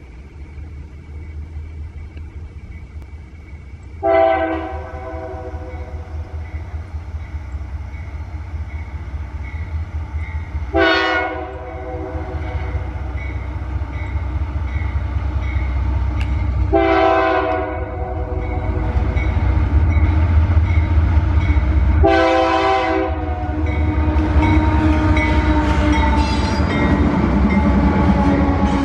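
A freight train led by GE AC44i diesel-electric locomotives approaches, its low engine rumble growing louder. It sounds four short chord blasts on the horn, about six seconds apart. Near the end the locomotives pass close by and the loaded wagons roll past.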